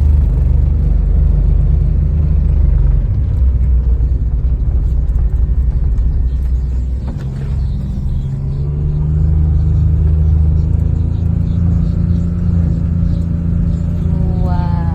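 A motor vehicle's engine running with a steady low rumble; about halfway through its tone rises slightly and then holds.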